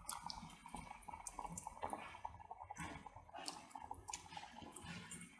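Raw fish pieces being dropped by hand into a simmering tomato-and-chilli fish curry: a series of faint wet plops and splashes over the curry's soft bubbling.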